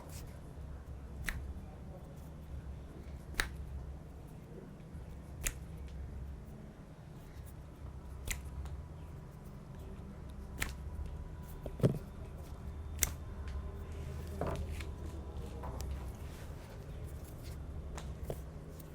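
Sharp snapping clicks from a head and hair massage, about nine of them at uneven gaps of one to three seconds, the loudest about twelve seconds in, over a steady low hum.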